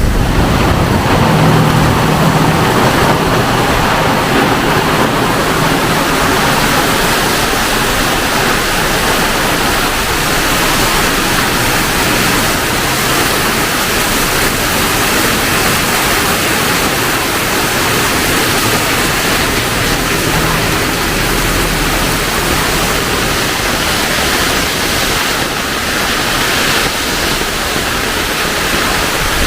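Heavy tropical rain pouring down in a steady, dense hiss, with a low hum at times underneath.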